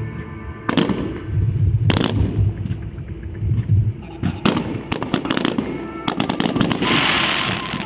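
Aerial fireworks bursting: single booms about a second apart, then a quick run of bangs about six seconds in, followed by a second-long hiss near the end. Faint music plays underneath.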